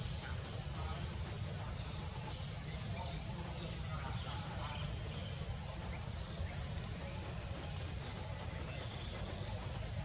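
Steady high-pitched drone of insects over a low steady rumble.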